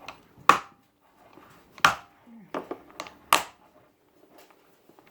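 Close-miked eating sounds: a handful of sharp mouth smacks and clicks while chewing, irregularly spaced with quiet between them.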